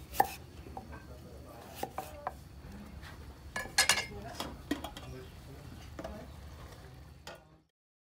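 Cleaver cutting radish on a wooden chopping block: scattered sharp knocks of the blade on the board, several close together about four seconds in. The sound cuts off abruptly into dead silence near the end.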